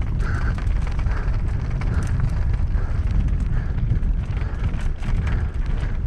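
Wind buffeting the camera microphone while a mountain bike descends rough singletrack at speed, with the chain, frame and tyres rattling and knocking over rocks and roots.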